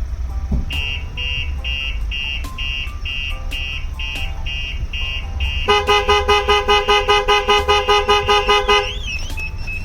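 A Starline Solaris vehicle alarm on a Ford Transit van sounds a run of short high-pitched beeps, about three a second. About six seconds in, the van's horn honks rapidly, about five blasts a second for some three seconds, and a short chirp follows near the end. This is the alarm's pre-warn and then its full trigger on the rear doors.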